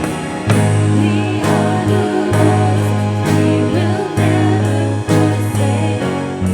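Music: a song with singing over instruments, with held bass notes and a regular beat.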